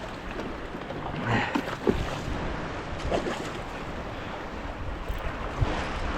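Wind on the microphone and water lapping around a small boat, a steady rushing noise, with a few brief louder sounds about one and a half and three seconds in.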